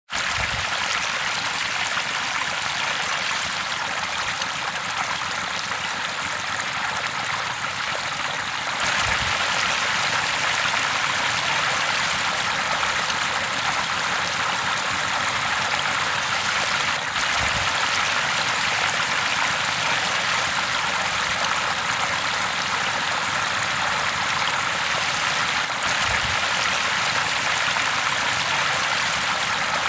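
River water flowing steadily, a constant rushing hiss, slightly louder from about nine seconds in.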